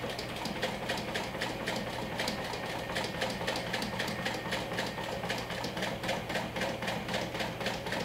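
Industrial single-needle straight-stitch sewing machine stitching slowly and steadily, about five even stitch clicks a second over a steady motor hum, as it sews along the edge of the bag layers and zipper tape.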